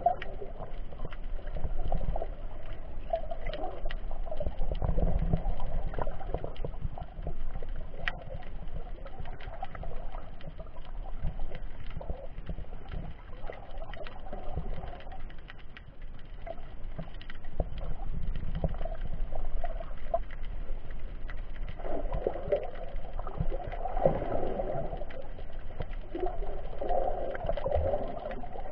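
Muffled underwater water noise picked up through an action camera's sealed waterproof housing: a continuous low rumble and swelling washes of water movement, with many scattered faint clicks and crackles.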